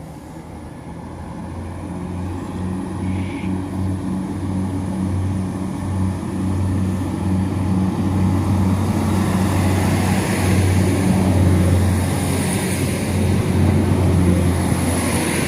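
NI Railways Class 3000 diesel multiple unit pulling away, its underfloor diesel engines droning on a steady low note that grows steadily louder. Wheel and rail noise and a thin high whine build up in the second half.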